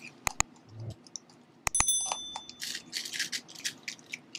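Subscribe-button sound effect: two quick mouse clicks, then about 1.7 s in another pair of clicks with a short high bell ding. Soft bursts of hiss follow.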